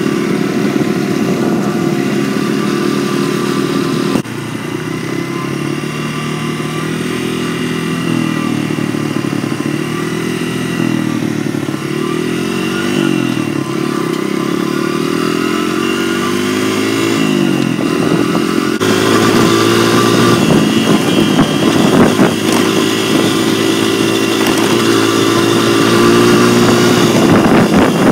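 Dirt bike engine running under way, its pitch repeatedly rising as it accelerates and dropping at each shift. The sound changes abruptly twice where the footage is cut, and the louder second half has wind rumbling on the microphone.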